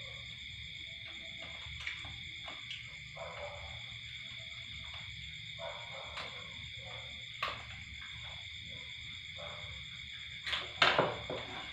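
Steady night chorus of insects, several even, high-pitched trills held at different pitches, with scattered small clicks and clinks of a spoon against a bowl, a few louder ones near the end.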